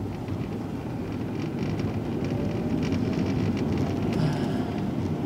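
Car engine and tyre noise heard from inside the cabin as the car moves forward in slow traffic, a steady rumble that grows slightly louder over the first couple of seconds.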